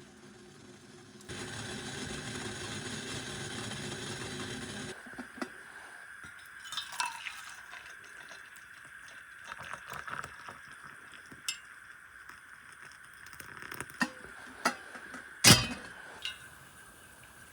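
Dishes and cutlery clinking and knocking as they are handled, with one louder clatter near the end. A steady rushing noise runs for about four seconds near the start.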